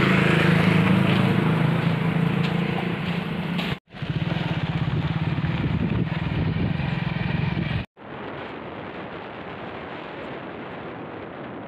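Motorcycle engine running steadily while riding, with wind and road hiss on the microphone, in clips cut together. About eight seconds in, the sound switches to a quieter, even hiss of wind and road noise.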